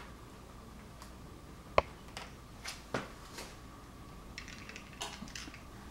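A scatter of small, sharp clicks and light taps, the loudest about two seconds in: a small Phillips screwdriver working a tiny screw out of a laptop's plastic screen bezel, its tip and the screw clicking against the plastic.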